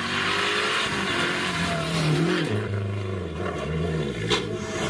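Rally car engine revving hard along a tarmac mountain stage, its pitch rising and falling with throttle and gear changes. A sharp crack comes near the end.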